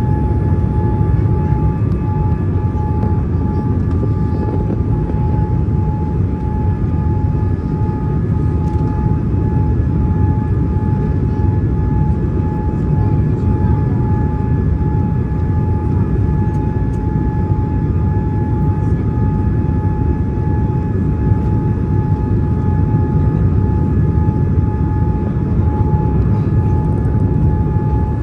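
Boeing 787 cabin noise heard from a window seat over the wing on final approach, flaps extended: a steady low rush of engines and airflow with a steady high whine over it.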